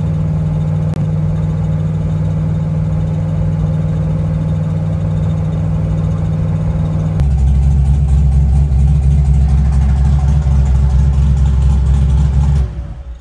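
Twin-turbo drag car's engine cruising steadily at about 2,350 rpm, heard from inside the cabin. The drone turns deeper and heavier about seven seconds in and cuts off suddenly near the end.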